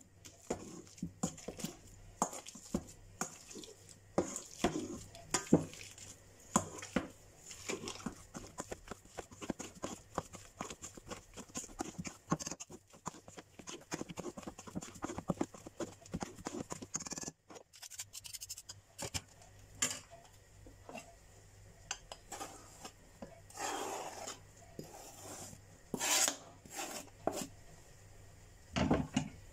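Metal potato masher pressing boiled potatoes in a stainless steel bowl: rapid, repeated squashing strokes with the masher knocking and scraping against the bowl. After a short break, a few longer scrapes and a dull knock near the end.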